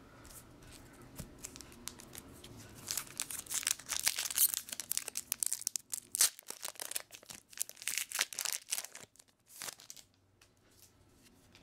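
The foil wrapper of a Magic: The Gathering booster pack being torn open and crinkled by hand: a dense run of quick crackles and rips starts about three seconds in and stops shortly before the end.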